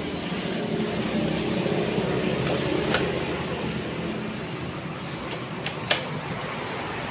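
Canon MG2570S inkjet printer running its power-on initialization, its motors whirring steadily with sharp mechanical clicks about three seconds in and near six seconds in, the second one the loudest.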